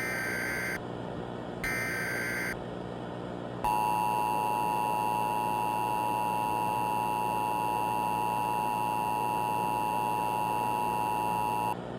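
Emergency Alert System header: two short bursts of buzzing data tones, the second about two seconds in. Then the EAS attention signal, a steady two-tone beep, is held for about eight seconds and cuts off near the end.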